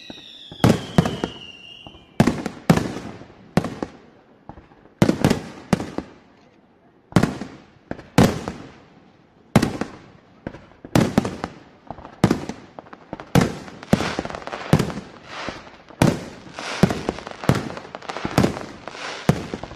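Fireworks going off: a run of sharp bangs, each trailing a short crackle, coming faster in the second half. A falling whistle fades out about two seconds in.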